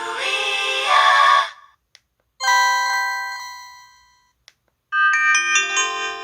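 Three short built-in sound effects from an LG-SH130 phone, one after another with gaps between them: a brief synthesized jingle with gliding notes, then a chime that rings and fades over about two seconds, then a short electronic melody of stepped tones.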